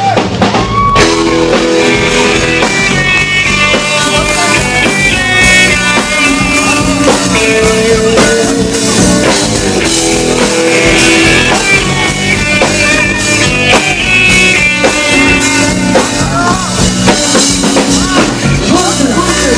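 Rock music with guitar and a drum kit playing a steady beat, with no clear vocals.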